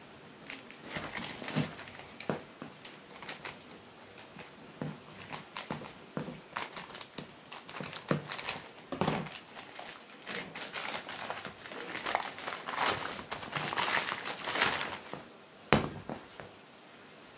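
Thin plastic packaging bag crinkling and rustling as it is cut open with scissors and the part is pulled out. A single sharp knock comes near the end.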